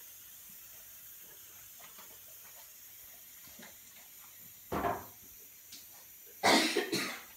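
Kitchen cookware being handled: a short knock about five seconds in, then a louder clatter near the end.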